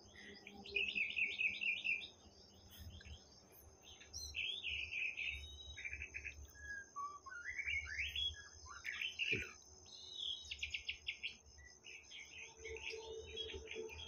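White-rumped shama (murai batu) singing: a long series of varied whistled phrases, with fast trills and gliding, falling notes, broken by short pauses.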